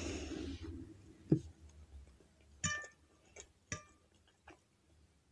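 Metal fork clinking against a ceramic plate, two ringing clinks about a second apart, with a few fainter ticks around them.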